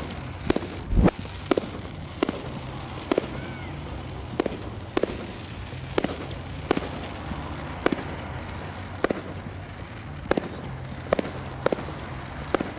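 Fireworks display going off: a string of sharp bangs about every half second to a second, with a heavier boom about a second in, over a steady low hum.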